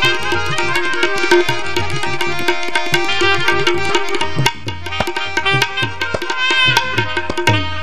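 Instrumental passage of a bhajan. A hand drum plays a fast, dense rhythm under sustained melody notes and a held drone tone.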